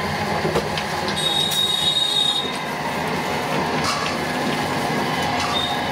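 Roller ice cream machine's motor-driven chilled drum turning with a steady running noise, a thin high squeal about a second in lasting about a second, and a shorter squeal near the end.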